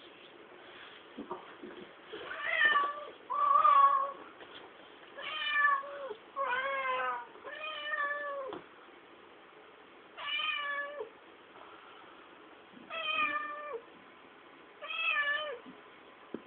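Domestic cat meowing repeatedly: about eight drawn-out meows a second or two apart, each dropping in pitch at the end.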